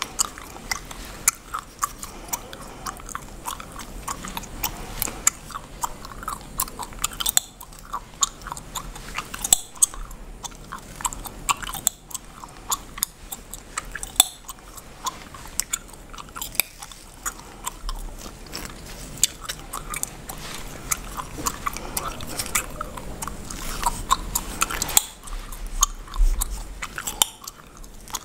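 Bubblegum chewed and cracked close to the microphone, with many sharp snaps throughout. Underneath is the scratch and rustle of fingers and a comb working through oiled hair and scalp.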